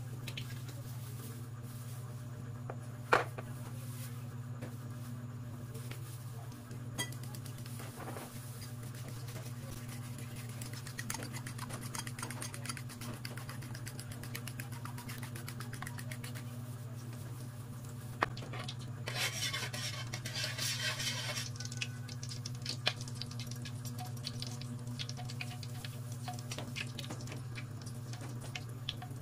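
Cooking oil heating in an aluminium wok on a gas stove: a steady low hum under faint ticks and crackles that come more often as it goes on. A sharp click comes about three seconds in, and a brief hiss about twenty seconds in.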